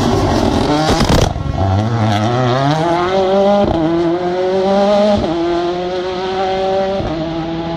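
Mini John Cooper Works S2000 rally car's engine revving hard as the car pulls out of a chicane and accelerates away. The pitch rises through the gears, with upshifts about three and a half, five and seven seconds in.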